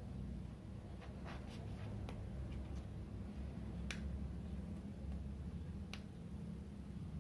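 A few sharp clicks and light crackles from a vinyl sticker sheet being handled and flexed, over a steady low hum. A cluster of small crackles comes about a second in, then single clicks about two seconds apart.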